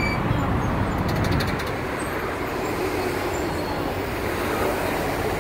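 Steady freeway traffic noise, with a brief run of faint high clicks about a second in.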